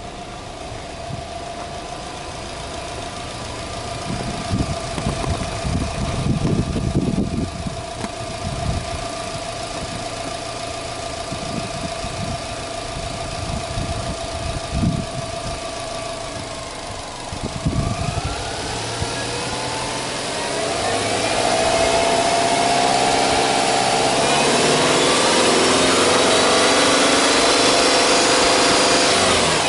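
Subaru Legacy Touring Wagon 2.0GT's turbocharged EJ20 flat-four idling steadily. About eighteen seconds in, the engine revs up, rising over a few seconds, and is then held at a raised, steady speed, louder, until it drops back near the end.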